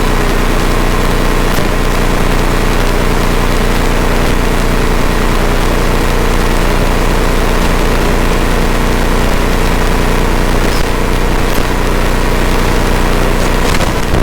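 Rotax 912 iS flat-four engine and propeller of a Flight Design CTLSi light-sport aircraft running steadily, heard inside the cockpit.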